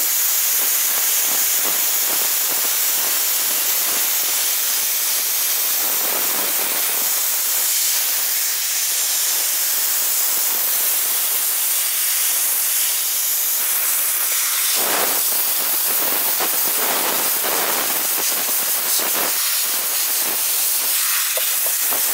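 Compressed-air duster gun blasting with a steady, loud hiss. A plastic hose taped into its nozzle draws baking soda up by the venturi effect and sprays it onto a metal brake caliper bracket to strip the muck off it.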